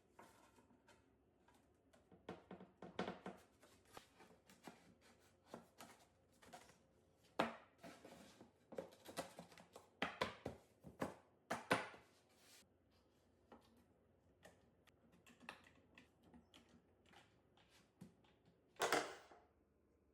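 Faint, irregular clicks and knocks of wood pieces and hand tools being handled in a small shop, busiest in the middle, with a short scrape near the end.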